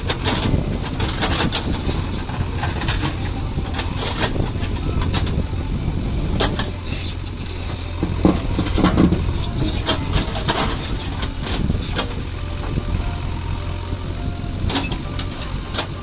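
JCB 3DX backhoe loader's diesel engine running steadily under load while the backhoe bucket digs through stony soil, with scattered knocks and clatters of stones against the steel bucket, busiest about halfway through.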